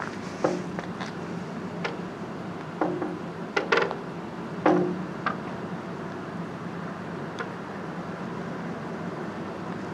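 Irregular sharp knocks and clinks, a few with a short ringing tail and the loudest about four and five seconds in, over a steady low hum.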